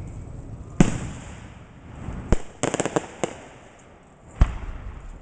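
Fireworks going off. A loud bang about a second in rings away, then comes a sharp crack and a quick run of crackles, and another bang near the end.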